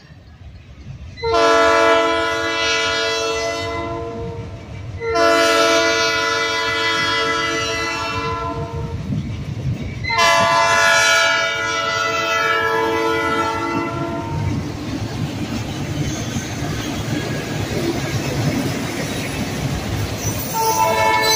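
Diesel locomotive air horn sounding a multi-tone chord for a grade crossing: three long blasts, then a fourth starting near the end. Between the blasts the locomotives' diesel engines rumble and the train's wheels pass over the rails.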